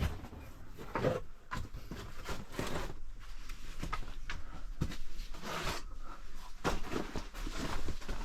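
Irregular scuffing, scraping and rustling of people clambering through a cave passage: footfalls and gear brushing against rock and mud.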